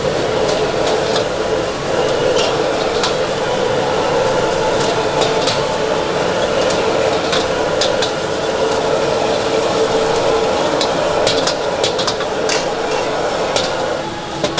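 Food frying in a hot wok or pan over a steady gas burner, with a metal utensil clinking against the pan again and again. The steady burner and frying noise stops near the end.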